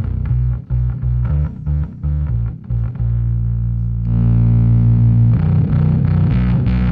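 Bass guitar played through a Fender Blender fuzz pedal: a run of short fuzzed notes, then one note held for about two seconds, then a faster run. About four seconds in, the fuzz turns brighter and harsher as the pedal's blend knob is turned.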